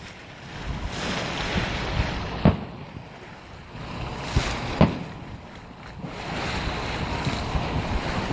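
Distant aerial fireworks bursting: a few sharp booms, the loudest about two and a half and five seconds in, over rushing wind noise on the microphone.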